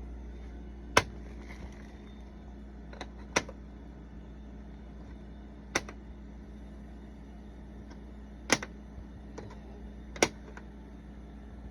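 Plastic magnetic letters clicking down one at a time onto a metal surface: five sharp clicks a couple of seconds apart, with a few lighter ticks between, over a steady low hum.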